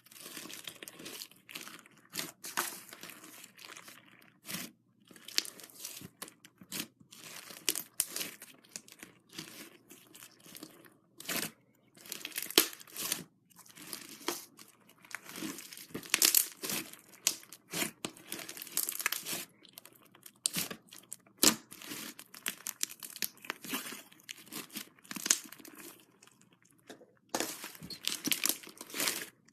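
Slime being kneaded and stretched by hand, crackling and popping in irregular bursts with short pauses.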